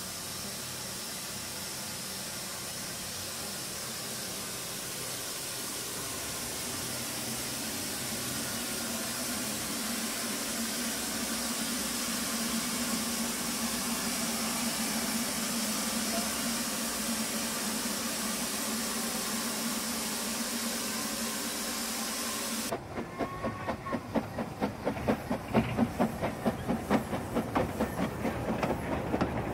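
Steam hissing steadily from the Ffestiniog Railway's George England saddle-tank locomotive Palmerston, slowly growing louder. Near the end it gives way suddenly to the rhythmic clatter of the goods train's small wagons rolling over the rail joints, about two beats a second.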